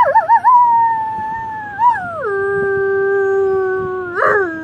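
A person imitating a wolf's excited howl through cupped hands. It opens with a few quick wavering yips, then a long high howl that drops sharply to a lower held note about two seconds in. Just before the end the voice briefly cracks upward.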